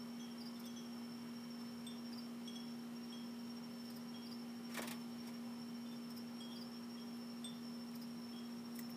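Crickets chirping at night, with a continuous high trill and short, irregular chirps over a steady low hum. A single sharp click comes about five seconds in.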